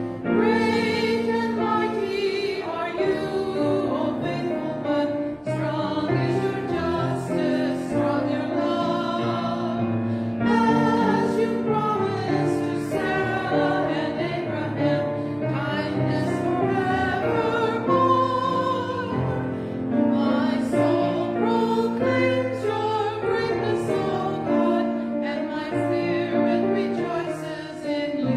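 Two women singing a sung liturgy together, their voices moving in long sustained notes, with low held notes sounding beneath them.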